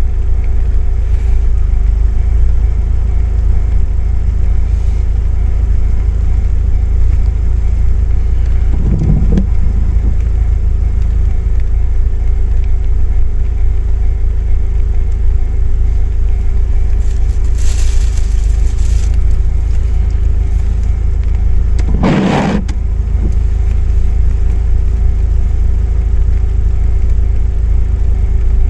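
Car's steady low rumble with a thin steady hum over it, and two brief louder knocks about nine and twenty-two seconds in.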